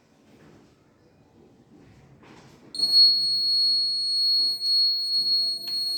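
Buzzer of a battery-powered heat-detector fire alarm sounding a continuous steady high-pitched tone. It switches on abruptly a little under three seconds in, after a few faint handling clicks.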